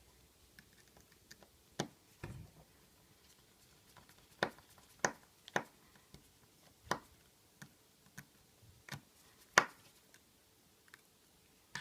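Small, sharp clicks and taps of a screwdriver and tools working the screws of a phone's internal metal plate, about ten at irregular intervals.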